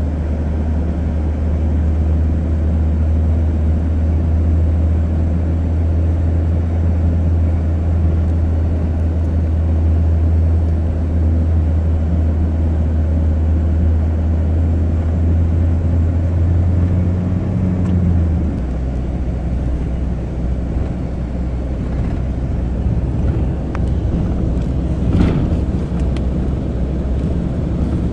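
Car engine and road noise heard from inside the cabin while driving: a steady low drone that steps down lower about two-thirds of the way through. A single brief click near the end.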